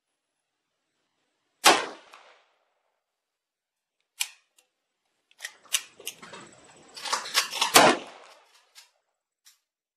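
Gunshots from a Chiappa PAK-9 9mm blowback AK pistol: one shot under two seconds in, a sharp crack around four seconds, then a quick run of cracks and clicks from about five to nine seconds, loudest near eight seconds.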